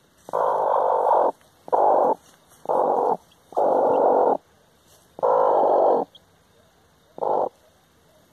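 Broody Brahma hen sitting on newly hatched chicks, giving a run of about six rough, noisy growls, each up to a second long, with short pauses between.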